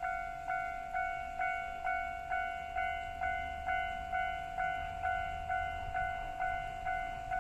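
Japanese level crossing warning bell ringing in a steady rhythm of about two strikes a second, each ding fading before the next, with a faint low rumble underneath.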